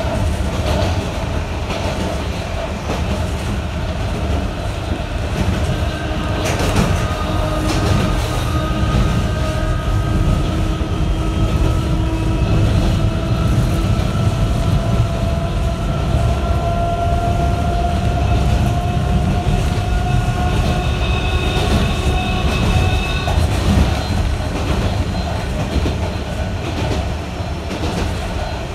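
Sanki Railway Series 270 narrow-gauge electric train running: a steady rumble of wheels on rail, with a whine that rises slowly in pitch as the train gathers speed and stops a few seconds before the end. A single sharp knock comes about seven seconds in.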